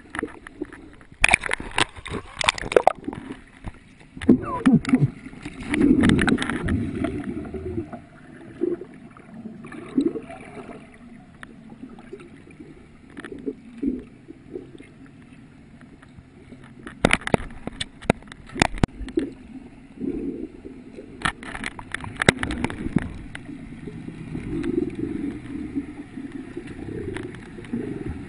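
Water gurgling and sloshing around a camera held underwater while snorkeling, with several clusters of sharp crackling splashes.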